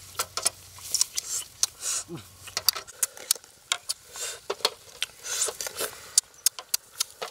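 Metal tongs clicking and tapping against a steel tray and eggshells as eggs are handled, many short sharp clicks with brief rustling between them.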